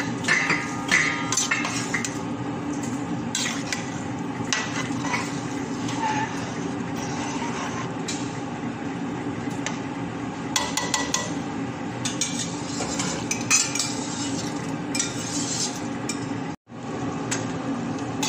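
Metal ladle stirring a boiling stew in a stainless steel pot, scraping and clinking against the pot at irregular moments over a steady background hum. The sound drops out for an instant near the end.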